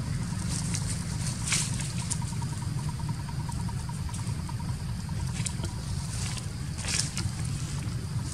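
Outdoor ambience: a steady low rumble with short crackles of dry leaf litter, the loudest about a second and a half in and near the end, and a faint rapid pulsing high tone in the middle.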